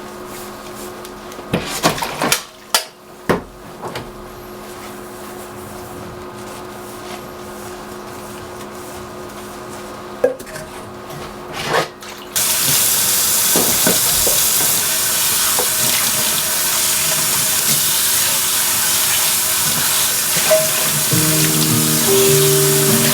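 A few light clicks and knocks, then about halfway through a kitchen tap is turned on and water runs steadily into a sink. Background music comes in near the end.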